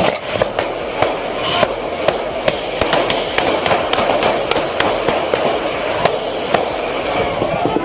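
Rifle gunfire in a shootout: many sharp shots coming irregularly, a few a second, over a steady rush of noise.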